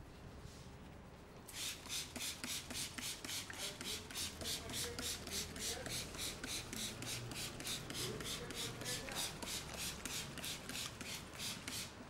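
Hand-pumped trigger spray bottle misting water onto hair in quick, even squirts, about four a second, starting about a second and a half in.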